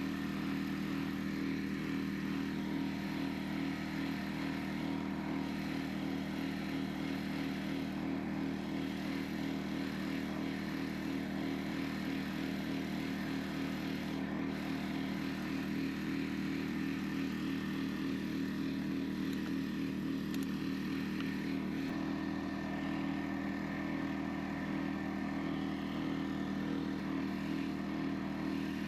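Air compressor running, a steady unchanging drone with a faint hiss above it.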